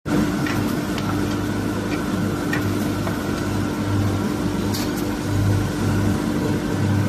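Automatic CNC wood lathe running steadily: a constant motor hum and tone, with a few light clicks and a short hiss about five seconds in as its feeder loads two square wooden blanks.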